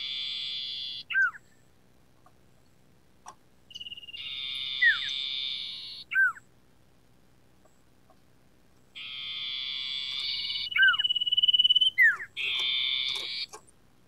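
Common iora singing: four long buzzy trills, each followed by one or two quick down-slurred whistles, with a steady high whistle held for about a second before the last trill.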